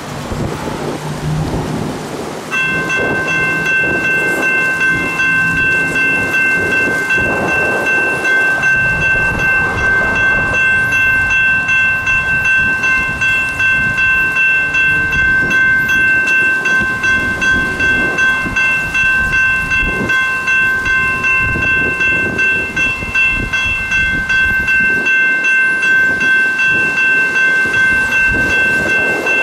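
Railroad crossing bell starting to ring about two and a half seconds in as the crossing activates, then ringing steadily with rapid repeated strikes, over wind buffeting the microphone.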